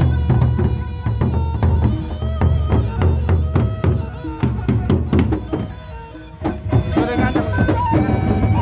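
Gendang beleq ensemble playing: large Sasak barrel drums beaten with sticks in rapid, dense strokes over a held, shifting melody line. The playing eases off briefly about six seconds in, then picks up again.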